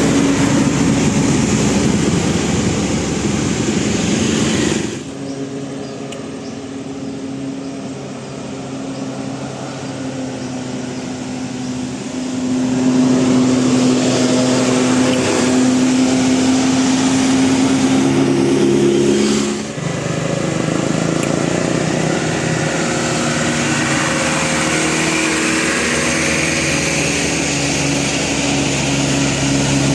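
Bus engines running with a steady drone. The sound changes abruptly about 5 seconds in and again about 20 seconds in, and is quieter between about 5 and 12 seconds.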